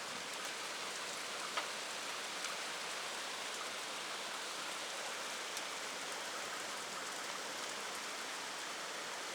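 Steady rain falling as a hailstorm tapers off, with a couple of faint ticks in the first few seconds.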